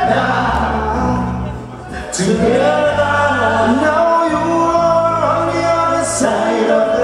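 Live music: several men singing together over a band, with a steady bass line underneath.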